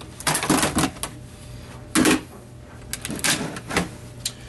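A handful of short bursts of mechanical clatter from work inside an iMac G5's metal chassis as a drill-driver backs out screws, with a single sharp click near the end.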